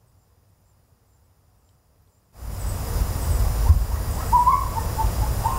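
Near silence, then about two seconds in a steady low rumble with hiss comes in, with a few faint short calls over it in the second half.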